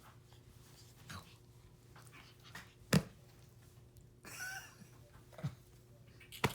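A capuchin monkey gives a short, squeaky call a little after four seconds in. A sharp knock about three seconds in is the loudest sound, with a few softer knocks scattered around it.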